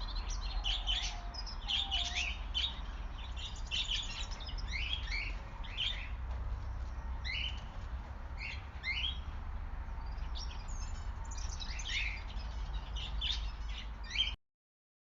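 Several wild birds chirping and calling together, a busy run of short chirps and quick sweeping notes; the sound stops abruptly near the end.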